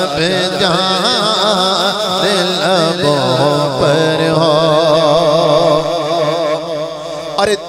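A man singing an Urdu naat into a microphone: long held, wavering melismatic phrases of devotional chant, with a short break near the end.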